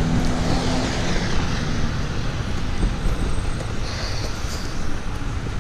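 Street traffic: cars driving past, with a nearby vehicle's engine idling as a low steady hum for the first couple of seconds.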